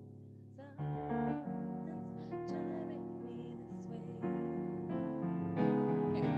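Keyboard playing piano chords at a slow pace, each chord held until the next is struck about every second. This is the opening of a new song being played.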